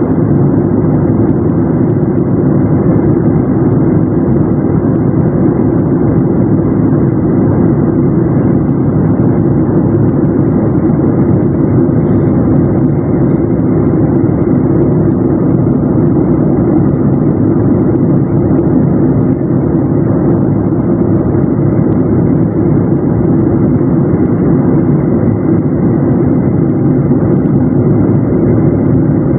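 Steady cabin noise of a Boeing 737 airliner in flight, heard inside the cabin: an even, unbroken deep rush of engine and airflow noise.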